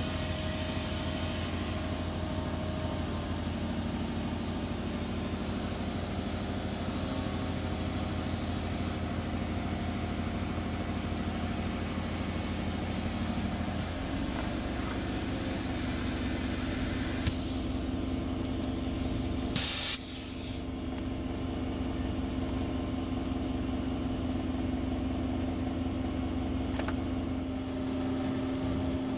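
An engine runs steadily throughout, its pitch shifting about halfway through. About two-thirds of the way in comes a short, sharp hiss of air.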